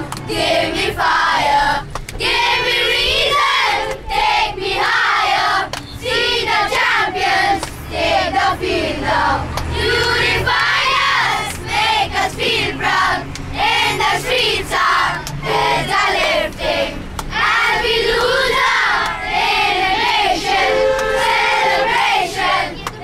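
A group of young boys singing and shouting together, many voices at once, loud and nearly unbroken, in the confined space of a bus.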